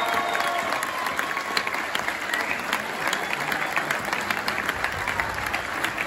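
A large audience applauding: dense, steady clapping, with a few cheers and whoops fading out in the first second.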